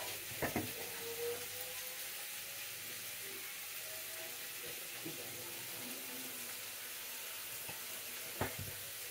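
Chopped onion and garlic sizzling steadily in olive oil in a wok, with a couple of sharp knocks about half a second in and another near the end.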